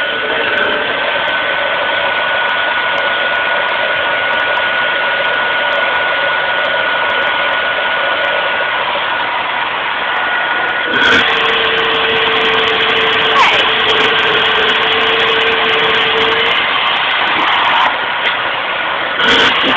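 Vacuum cleaner motor running steadily with a high whine. About eleven seconds in there is a knock and the whine shifts to a lower tone for several seconds.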